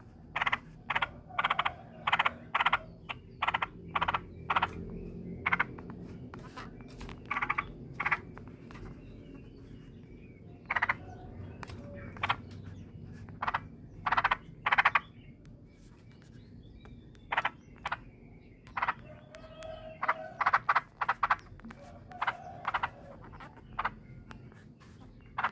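Yellow-vented bulbul (trucukan) making short, harsh, rasping 'ngorok' calls in irregular bursts, singly and in quick runs, over a low steady background hum.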